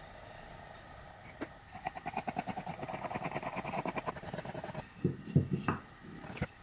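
Wood glue squeezed from a plastic squeeze bottle onto a pine batten, giving a fast, sputtering crackle for about three seconds, followed by a few wooden knocks as blocks are set down on the board.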